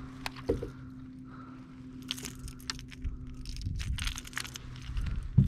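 Baitcasting reel and a hard plastic lure being handled as the lure is reeled up to the rod tip: a few sharp clicks, then a quick run of small clicks and crackles about two seconds in, over a faint steady hum.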